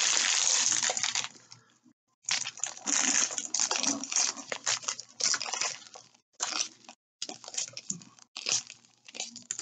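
Small clear plastic bags of resin diamond-painting drills crinkling and rustling as they are handled and shuffled together. There is a steady stretch at first, a brief pause about two seconds in, then irregular crackles.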